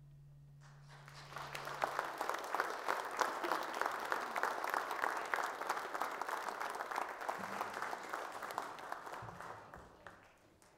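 Congregation clapping after a piece of music: the applause starts about a second in, holds, and dies away near the end. The last held note of the music fades out under it in the first two seconds.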